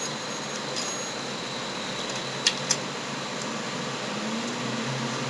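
Steady hum and hiss of room noise, like a computer fan running, with two quick clicks about two and a half seconds in.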